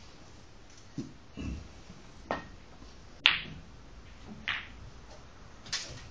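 Snooker balls on a full-size table: the cue strikes the cue ball, then sharp clicks of balls hitting one another, five in all, the loudest about halfway through, with one dull thump early on.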